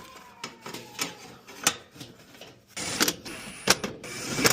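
Scattered sharp clicks and knocks of tools and parts being handled on an air handler's blower motor as a new ECM motor module is fitted, with several close together about three seconds in.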